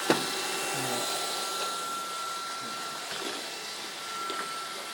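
Roomba robot vacuum running, a steady whir of motor and brushes with a thin high whine, and one sharp knock just after the start.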